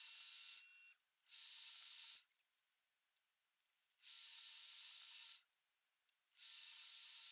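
Drilling-machine spindle running a small twist drill as it pecks into a deep hole, a steady high whine. It comes in four stretches of about one to one and a half seconds each, with abrupt silence between them.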